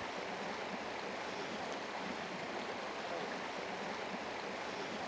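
Mountain headwater stream running over rocks in a small cascade: a steady, even rush of water.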